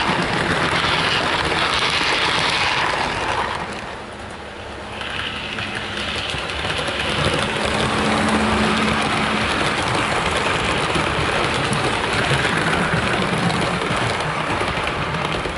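Hornby OO gauge Class 50 model diesel locomotive and its coaches running round the layout: a steady rattle of wheels on the track with a motor hum. It dips briefly about four seconds in, then builds again as the locomotive passes close by.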